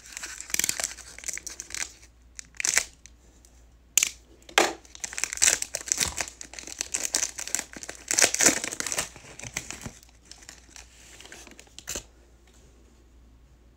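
Gold foil wrapper of a Gold Standard football card pack crinkling and tearing as it is pulled open by hand, in irregular crackling bursts that die away after about ten seconds. Near the end, a single light tap.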